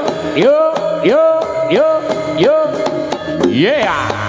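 Live jaranan senterewe music: drums and percussion under a repeating melodic phrase in which each note slides up and then holds, about every 0.6 s, changing pattern about three and a half seconds in.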